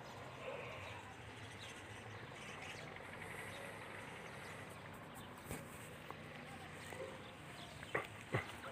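Faint outdoor background noise with a low steady hum and a few brief clicks in the second half.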